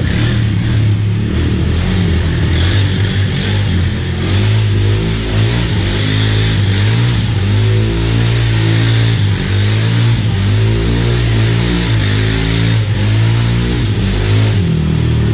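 Old Saturn car's engine running hard and continuously, its pitch wavering up and down as the car is thrashed around.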